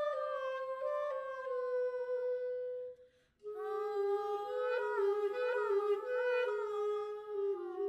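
A single melodic line of long held notes. It slides slowly down in pitch, breaks off for a moment about three seconds in, then comes back lower with a few quick wavering turns around a held note.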